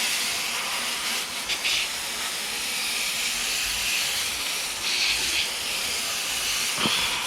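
Garden hose spray hissing steadily against the fins of a Goodman air conditioner's condenser coil as the coil is rinsed clean.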